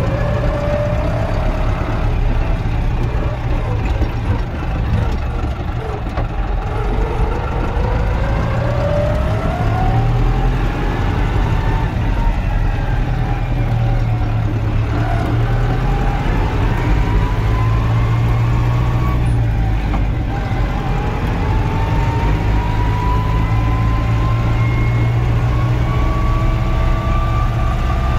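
Same Argon 80 tractor's diesel engine running under load while driving. A whine climbs in pitch as it picks up speed, drops back, and climbs again several times over a steady low engine drone.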